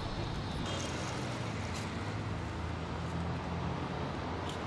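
Steady city traffic noise: an even low rumble with a hiss above it.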